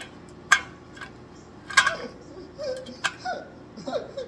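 Three sharp clicks of hard objects knocking together, a little over a second apart, with short squeaks in between.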